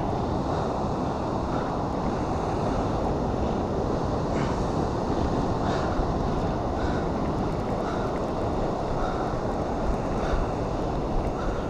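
Ocean surf washing onto a beach, with wind rumbling on the microphone. A faint short tick recurs about once a second.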